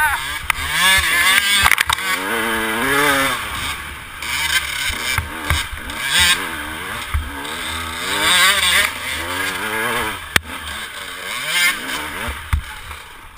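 Dirt bike engine revving up and down repeatedly while riding a trail, its pitch rising and falling every second or so. A single sharp knock sounds about ten seconds in.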